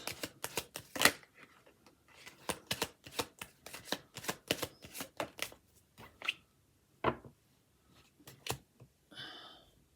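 Tarot cards being shuffled and handled, a long irregular run of sharp snaps and clicks.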